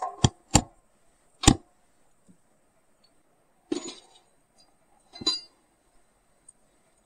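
Small metal tools working a thin metal band fitted onto a wooden axe handle on a stone anvil: three sharp metallic clinks within the first second and a half, then two longer, rougher rattling clinks about four and five seconds in.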